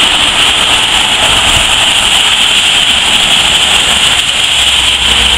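Steady hiss of rain and car tyres on a wet street, with a low rumble of passing traffic underneath.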